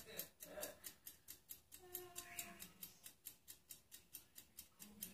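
Faint, steady rapid ticking, about four to five even ticks a second.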